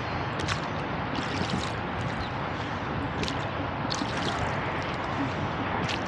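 Oars of a wooden rowboat dipping and pulling through the water, with a splash and drip at each stroke every second or two over a steady rushing hiss.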